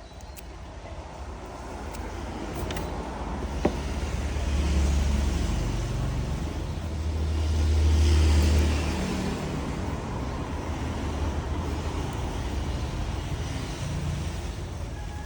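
Road traffic: a deep engine rumble swelling and fading twice as vehicles pass, with a single sharp click a few seconds in.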